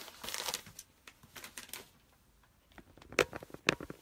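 Light handling noises: a brief rustle near the start, then scattered light clicks and taps, with a couple of sharper taps about three seconds in.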